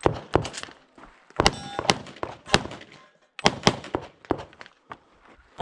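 A rapid string of pistol shots fired through a Limited-division stage, with a short pause about three seconds in. A steel target rings after one of the shots about a second and a half in.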